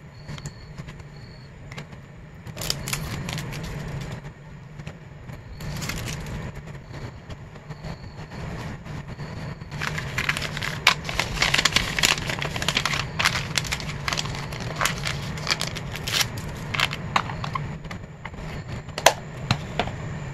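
Plastic packaging crinkling and rustling as a photocard in a clear sleeve and toploader is handled and wrapped in a grey plastic mailer bag. The crackling comes in scattered bursts, densest through the middle, with one sharp crackle near the end, over a steady low hum.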